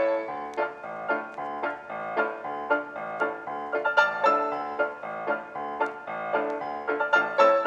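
Background music: a piano melody played note by note.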